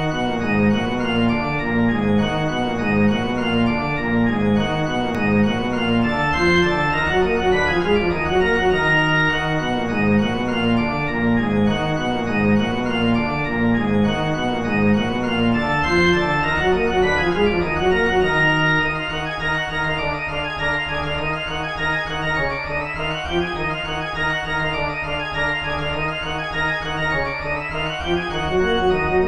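Background music with an organ-like keyboard sound playing chords, which turns a little quieter about two-thirds of the way through. Rising sweeps run up through the higher notes near the end.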